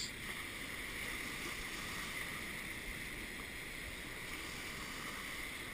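Ocean surf washing over and around a flat rock ledge: a steady rush of foaming water, even throughout with no separate crash standing out.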